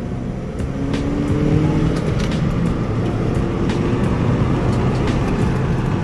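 Engine and road rumble heard from inside a moving car, with the engine note rising slowly as it accelerates. A few light clicks are scattered through it.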